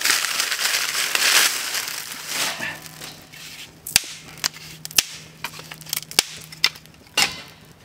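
Dry palm fronds crunching and rustling as they are stuffed into a small stainless steel fire pit, then the fresh fire crackling with a scatter of sharp pops and snaps, the loudest about four, five and seven seconds in.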